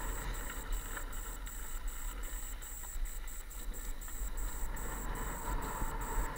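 Wind buffeting a helmet-mounted camera's microphone, with the steady rumble of mountain bike tyres rolling over a gravel trail.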